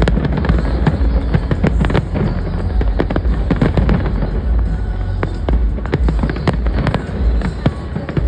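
Large fireworks display going off continuously: many sharp bangs and crackles in quick succession over a steady rumble of deep booms.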